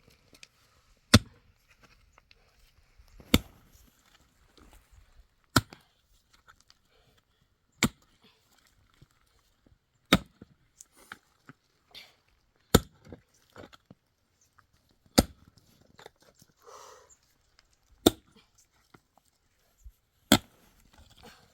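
A series of sharp knocks, nine in all, one about every two and a half seconds.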